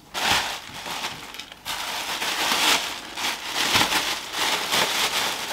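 Plastic packaging crinkling and rustling in irregular bursts as an air fryer rack is pulled out of its wrapping.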